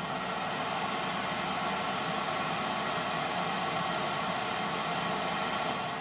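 Chinese diesel air heater's blower fan running in fan-only mode, burner not lit, giving a steady rush of air.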